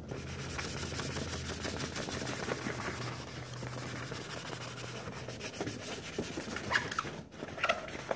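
Sanding block rubbed by hand over a wooden kitchen cabinet door in quick back-and-forth strokes, scuffing the old finish to prepare it for paint, with a brief pause near the end.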